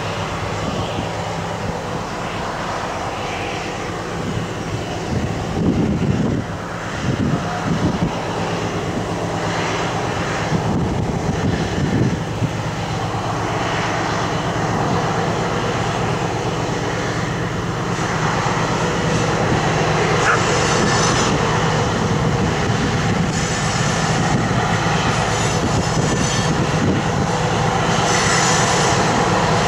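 Class 60 diesel locomotive's eight-cylinder engine running with a steady drone as it hauls a heavy train of tank wagons slowly past, growing gradually louder as it approaches. Wind buffets the microphone now and then in the first half.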